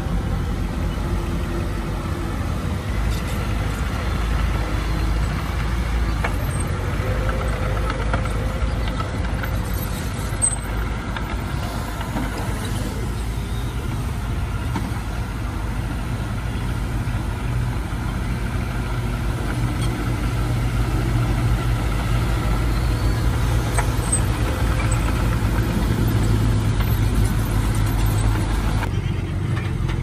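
Diesel engine of heavy earthmoving machinery running steadily, a continuous low engine sound with no sharp events.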